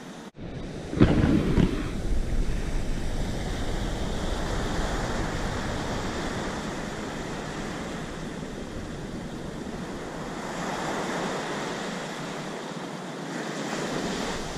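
Surf washing up a sandy beach and breaking on rocks, a steady rushing hiss that swells again about ten seconds in. About a second in, a loud gust of wind buffets the microphone.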